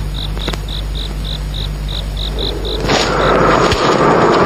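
A cricket chirping in a steady rhythm of short high chirps, about four a second, over a low hum in a film's night-time soundtrack. About three seconds in, the chirping stops and a louder rushing noise with a faint held tone takes over.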